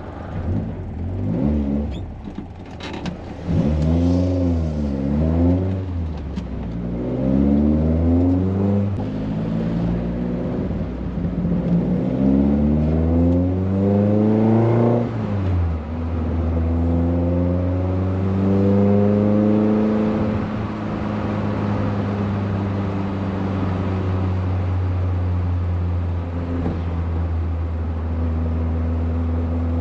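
VW Golf Mk1's 1.8 16-valve four-cylinder on twin Weber carburettors, through a Supersprint exhaust, running under load: the revs rise and fall a few times and climb in a long pull, drop sharply about halfway through, then hold nearly steady.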